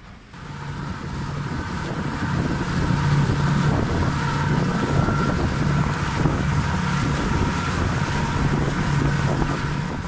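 A small passenger boat's engine running under way with a steady low hum, and water rushing past the hull. It comes in just after the start, swells over the first two seconds, then holds steady.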